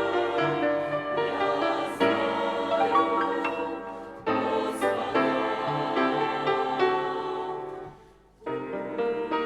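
Church choir singing a Russian hymn with instrumental accompaniment. The music breaks off briefly about eight seconds in, then resumes.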